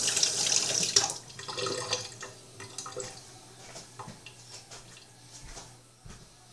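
Kitchen tap running for about two seconds, then a few light knocks and clinks.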